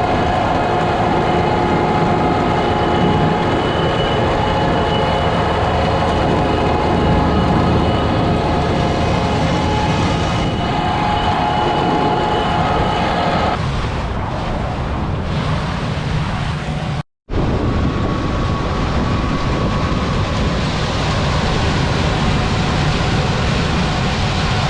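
Farm machinery running steadily: a heavy engine drone with a mechanical whine of several steady tones over it. The whine fades about 13 seconds in, the sound cuts out briefly near 17 seconds, then the steady drone goes on.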